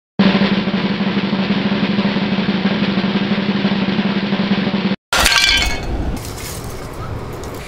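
Snare drum roll for about five seconds, cutting off suddenly, then a loud crash of a ceramic piggy bank smashing on a tiled floor, the pieces rattling as it dies away.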